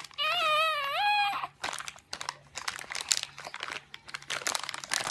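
A young child's high, wavering cry lasting about a second, followed by a rapid run of crinkling, crackling clicks like plastic or paper being handled.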